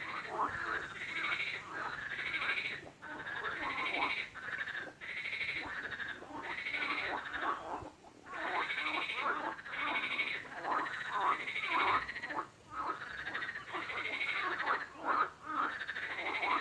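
Frogs croaking in a continuous chorus: overlapping calls repeat about once a second, with a few brief lulls.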